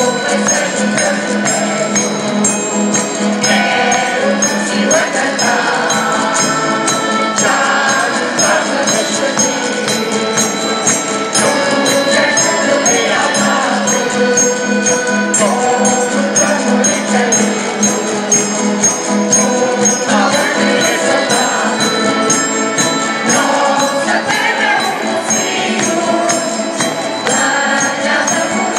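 Mixed folk choir singing together, with steady held instrumental notes underneath and a regular high percussion beat keeping time.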